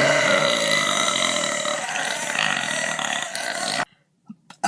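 A woman's long, deliberate burp, held at a fairly steady pitch for nearly four seconds, then cutting off suddenly.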